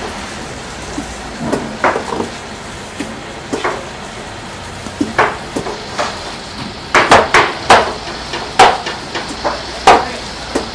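A heavy fish knife cutting a mackerel tuna against a hard table. Light knocks and scrapes of the blade come first, then a quick run of loud, sharp chops in the last few seconds.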